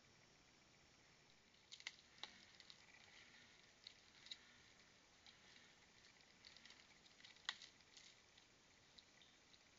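Faint, irregular scratching and clicking of a raccoon's claws on tree bark and a hanging tube bird feeder as it climbs onto it and clings there. The sharpest click comes about three-quarters of the way through.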